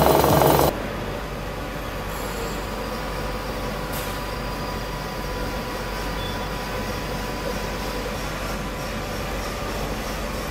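Heavy milling of a steel beam on a CNC boring machine, with a disc milling cutter chewing through the steel, breaks off abruptly under a second in. It gives way to the steady mechanical hum of a Gleason Titan 1500G gear grinding machine, with faint steady whines and a single click about four seconds in.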